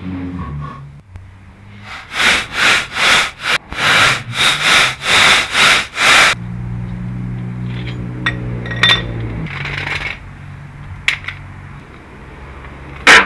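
A cordless impact wrench runs the lug nuts onto a refitted car wheel: about ten short, loud bursts at roughly two to three a second, then the motor spins steadily for about three seconds. A sharp clack comes near the end.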